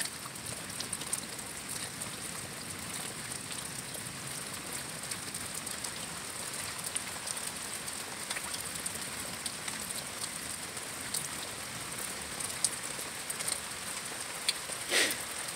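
Light rain pattering, with scattered drops ticking over a steady high hiss. One brief louder sound comes near the end.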